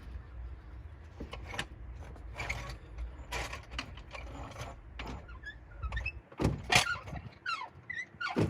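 Car jack being worked to raise the car and lift the engine: mechanical clicks and scrapes, then a run of short squeaks falling in pitch over the last couple of seconds.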